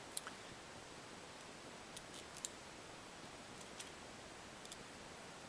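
Faint, scattered clicks of small metal screws and standoffs being picked up and handled against the quadcopter's isolation plate, about six light ticks.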